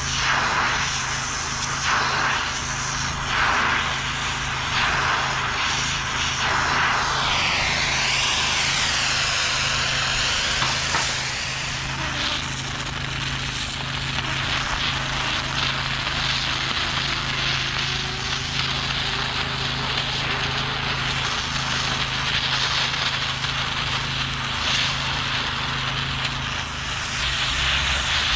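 Multiplaz 3500 water-plasma torch hissing steadily while brazing a cracked cast-iron band saw casting with brass rod, over a steady low hum. The hiss sweeps up and down in pitch around a third of the way in.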